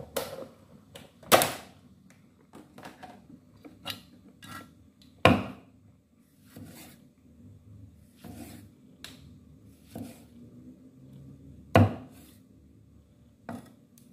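A knife striking a thick wooden chopping block while cutting a vegetable: irregular knocks, most of them light, with three much harder chops spread through.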